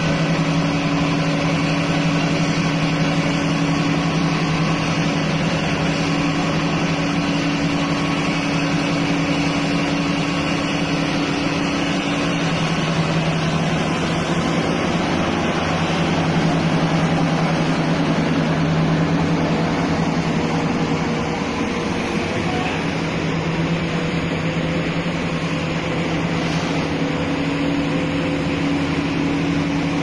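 Heavy diesel engine of a large hydraulic excavator running steadily with a deep, even hum; the hum's upper tone fades a little before halfway and comes back near the end.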